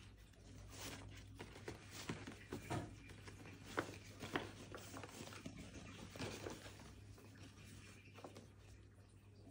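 Faint rustling and crinkling of a paper gift bag and its ribbon being handled as the bow is untied, with a couple of sharper clicks about four seconds in. A steady low hum runs underneath.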